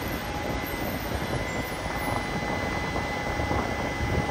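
Yokohama Municipal Subway 3000R-series train pulling to a stop at an underground platform: a steady low rumble with a thin, steady high whine over it.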